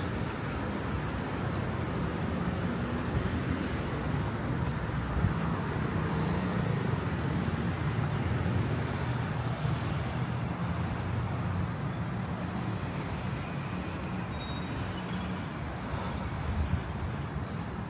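Steady city road traffic: a continuous low rumble of cars passing on the busy roads below.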